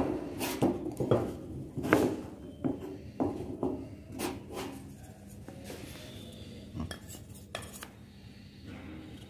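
Wooden mallet striking a wood chisel, chopping waste out of a halving-joint notch in a block of wood held in a vise: about eight sharp blows in the first five seconds. After that it goes quieter, with the chisel pushed by hand and a couple of light knocks near the end.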